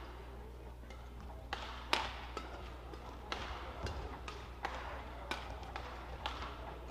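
Badminton rally: sharp, crisp racket strikes on a shuttlecock, several at uneven intervals, the loudest about two seconds in.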